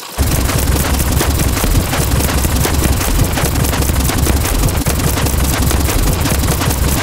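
Electronic drum loops with heavy bass playing back from a DAW project, a dense run of rapid drum hits that starts just after a brief dip.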